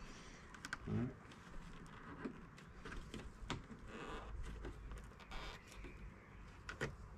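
Aluminium window trim strip being pried and pulled off a car door window frame by hand, with faint scattered clicks, creaks and short scrapes as it flexes and its clips let go.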